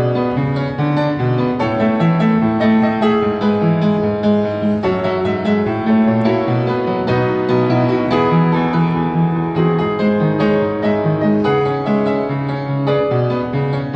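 Yamaha upright piano played with both hands: a run of quick notes up high over a moving line of held bass notes, with no break.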